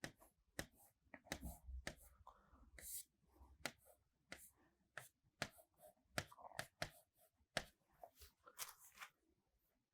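Near silence with faint, irregular clicks and taps of writing, about twenty over the stretch.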